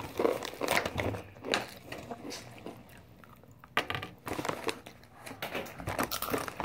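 Crunching of Takis rolled tortilla chips being bitten and chewed, with the crinkle of the foil snack bags as hands reach into them.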